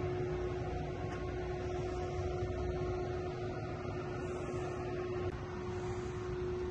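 Steady mechanical hum: one constant tone over a low rumble. The rumble shifts and drops slightly about five seconds in.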